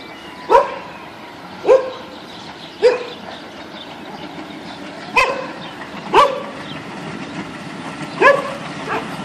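Feral dog barking, six sharp barks spaced one to two seconds apart. Under them, the low rumble of an approaching railway track machine grows toward the end.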